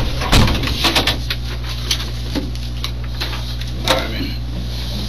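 Papers, a notebook and a pen being set down and handled on a table: a few sharp knocks and rustles, the loudest near the start and about four seconds in, over a steady low electrical hum.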